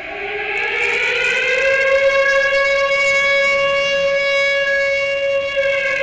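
Siren wailing to mark the start of a memorial act: its pitch climbs over the first second and a half, holds one steady tone, and begins to fall away near the end.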